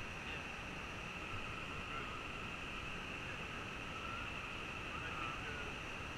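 Steady outdoor ambience on calm water: an even hiss with a constant high-pitched band over it, and a few faint distant calls in the second half.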